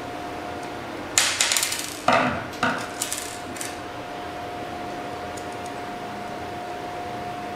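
Tools and small parts clattering and knocking on a work surface: a cluster of rattling knocks from about a second in to past three seconds, over a steady high hum.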